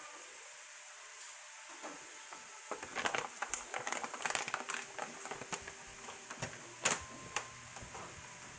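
Chopped beef crackling in a frying pan, starting to sizzle. A faint hiss for the first few seconds, then the crackle picks up about three seconds in, with one sharper tap near seven seconds.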